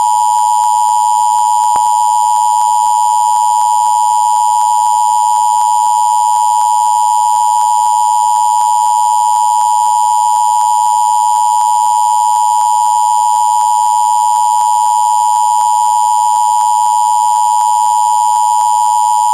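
NOAA Weather Radio warning alarm tone, a single steady electronic tone of about 1050 Hz held without a break. It is the alert that wakes weather radios for a warning, here a test tornado warning.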